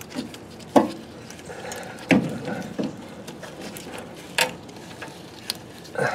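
A handful of separate clinks and knocks as a bungee cord and its hook are worked through a car's front control arm beside the brake caliper: metal parts being handled and bumped.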